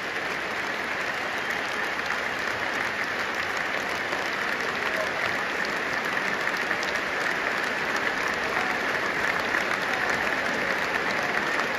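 A large stadium crowd applauding steadily, a little louder near the end.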